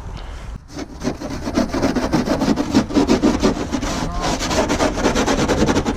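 Rapid rough scraping and rubbing: a dense run of grating strokes that starts under a second in and keeps going.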